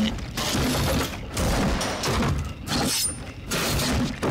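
Film sound effects of a wooden mechanical contraption working: clattering, ratcheting mechanism noise in bursts of about a second, with short breaks between.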